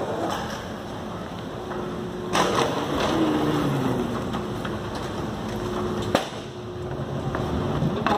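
Suitcase wheels rolling over a hard floor, with a steady hum from an escalator running. There are sharp knocks about two seconds in, past the middle, and at the very end.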